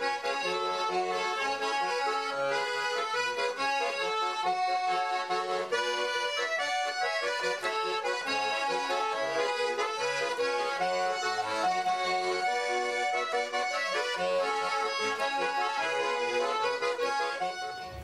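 Instrumental background music with held chords over a steady, rhythmic bass line; it stops near the end.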